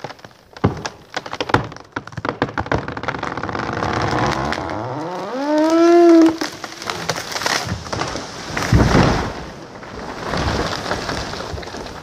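Big fir tree being felled: wood fibres cracking and snapping at the hinge, then a long creaking groan rising in pitch as the trunk tips over, and about three seconds later a heavy crash as the tree hits the slope, with more crashing after.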